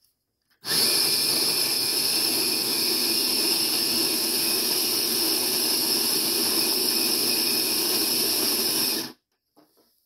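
Sboly electric conical burr coffee grinder grinding coffee beans: it starts about a second in, runs steadily for about eight seconds, then cuts off sharply by itself at the end of its timed four-cup dose.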